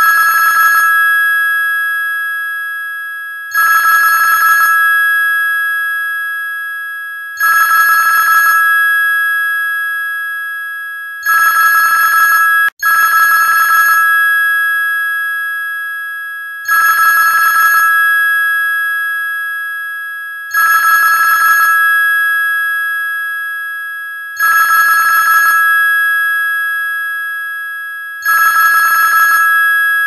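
Telephone ringtone: a trilling electronic ring that starts about every four seconds, lasts about a second, then fades away as two steady tones. Near the middle one ring is cut short and the ring starts again.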